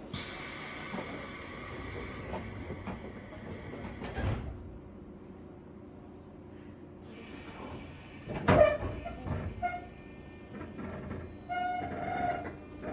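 Train door chime or departure melody with steady tones, stopping abruptly about four seconds in with a thud as the sliding doors shut. Near the middle comes one loud clank, followed by short steady tones from the JR West 201 series electric train as it gets under way.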